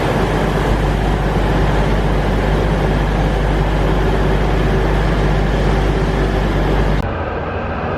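Diesel train engine running steadily at a station platform, a loud low rumble with a constant hum. About seven seconds in, the sound changes abruptly to a duller, quieter rumble.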